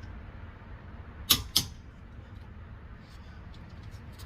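Two sharp plastic clicks about a third of a second apart: the hook of a lug nut cap removal tool prying a plastic lug nut cap off a Tesla Model X wheel.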